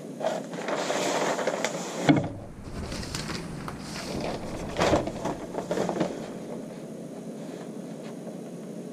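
Large sheet of pattern-making paper rustling and sliding over cardboard as it is shifted about with a plastic ruler, with a sharp knock about two seconds in. It settles to quiet near the end as the pen traces along the ruler.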